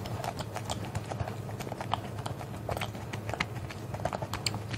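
Close-up chewing of a mouthful of corn-shaped wafer ice cream bar, many small irregular clicks of the wafer shell and ice cream in the mouth.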